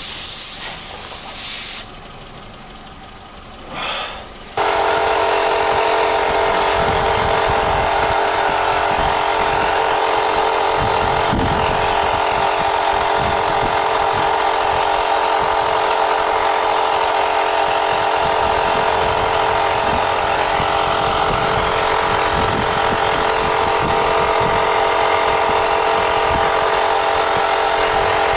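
A hiss of escaping air for the first couple of seconds, then, about four and a half seconds in, a small electric air compressor starts suddenly and runs at a steady, even pitch while the tyre is being repaired.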